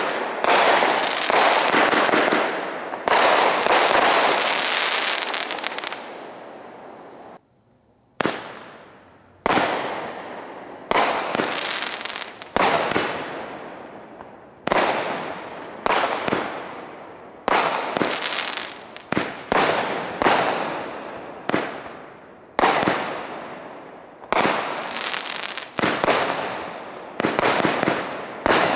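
Aerial fireworks going off in a rapid series of sudden bursts, about one a second, each fading out over about a second. There is a brief break about seven seconds in before the bursts start again.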